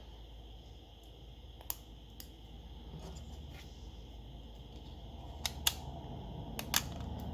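Small sharp clicks of hand tools and plastic phone parts being handled during a smartphone repair, about six in all and spread out, over a low steady hum.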